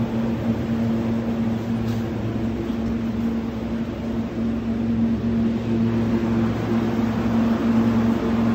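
Refrigerated display cases and cooling machinery humming steadily: a low droning hum over a constant rushing of fans.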